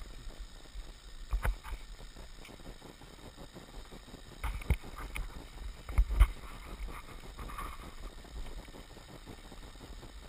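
Wind and handling rumble on a helmet-mounted GoPro as the skier shifts around in deep snow, with a few sharp knocks of gear against the camera: about a second and a half in, around four and a half seconds, and the loudest about six seconds in.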